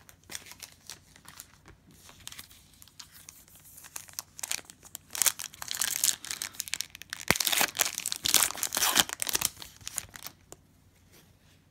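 Plastic wrapper of a Panini Prizm football card pack crinkling and tearing as it is ripped open by hand. It is loudest through the middle stretch, with one sharp snap partway through, then it quiets as the cards come out.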